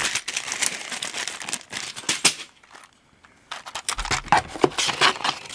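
Packaging crinkling and rustling as the box's contents are handled. There is a short pause about halfway through, then the crinkling starts again.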